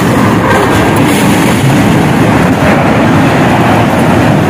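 Loud, steady rumbling noise with no distinct knocks or bangs.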